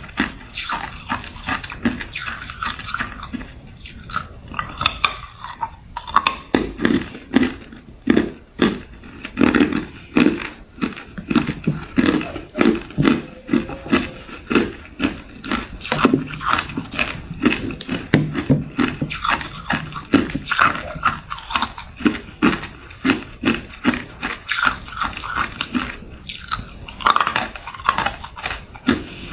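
A person biting and chewing hard clear ice cubes: a steady run of sharp crunches, about two a second, with a brief pause about five seconds in.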